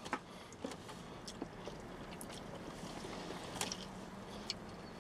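Faint chewing and wet mouth clicks from eating a burrito, a few short ticks scattered through, over a low steady hum.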